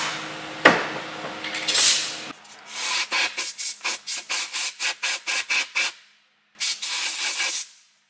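Compressed air blown in short blasts into a BMW 520d F10's cabin air filter housing to clear out dust and debris. A click and a brief blast come first over a low hum, then a run of rapid pulses, about four a second, then one steady blast of about a second near the end.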